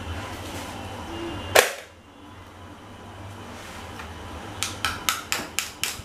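Hard plastic toy pieces being handled: one sharp, loud clack about one and a half seconds in, then a quick run of about seven light clicks near the end.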